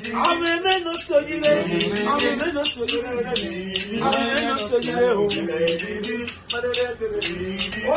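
Men singing a song in Edo, with a shaker rattle keeping a quick beat under the voices.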